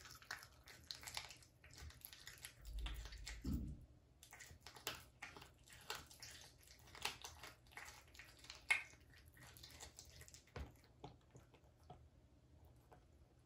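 A cat chewing a raw duck foot: faint, wet, irregular crunching and clicking, dying away near the end.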